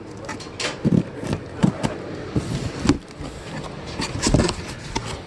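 A cardboard box being opened and rummaged through by hand: irregular knocks, scrapes and rustles as the contents are moved about.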